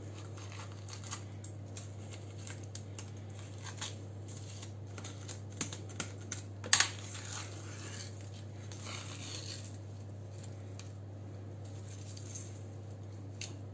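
A kitchen knife and fingers clicking, tapping and scraping on a plastic cutting board while a whitefish is slit open and gutted, with one sharper tap around halfway. A steady low hum runs underneath.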